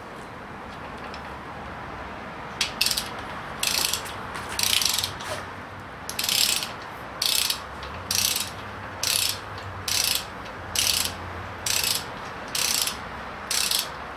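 Ratchet torque wrench being worked back and forth on the bolts of a Holden 308 V8 block, set to 70 ft-lb: about a dozen short ratcheting strokes, roughly one a second, starting a few seconds in.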